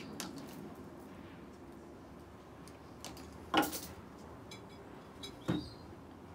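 Light ticks and two sharp clacks, about three and a half and five and a half seconds in, of wire and small tools being handled on a tabletop.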